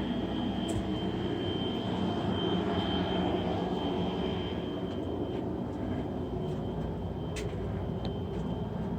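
Steady mechanical drone of a steam boiler's burner running, with a thin constant high whine and a few faint clicks.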